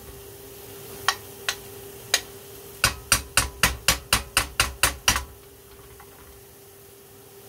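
A metal spoon knocking against an aluminium frying pan: a few single taps, then a quick run of about ten taps at roughly four a second. A faint steady hum runs underneath.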